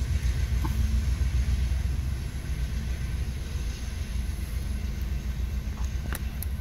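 Low rumble of Union Pacific diesel locomotives running light, slowly fading as they move away.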